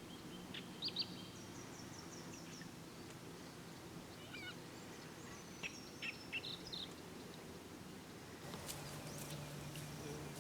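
Wild birds calling outdoors: scattered short chirps and a quick run of descending high notes, over a steady low hum. A few sharp clicks or knocks near the end.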